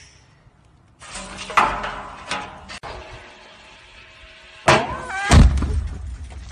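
A blue plastic oil drum blows up after its vapour is lit: a sudden loud bang about five seconds in, then a deep rumble that fades out. Small knocks and handling noise come before the blast.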